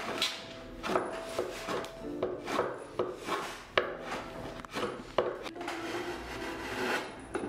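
Drawknife shaving the edge of a wooden chair seat in repeated uneven strokes, about two a second, each a short rasping cut into the wood, with one sharp click about halfway through. Soft background music plays underneath.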